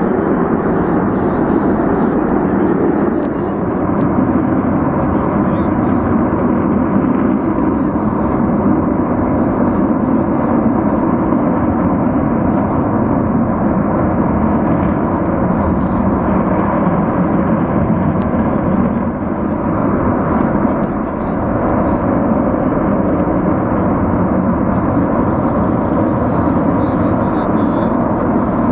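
Gas escaping and burning from a ruptured natural gas pipeline, a loud, steady, unbroken rushing noise.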